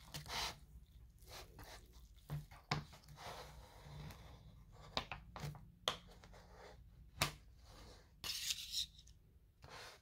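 Paper lid of an instant ramen cup being peeled back and torn off in several short rustling, tearing bursts. A few sharp clicks come in between.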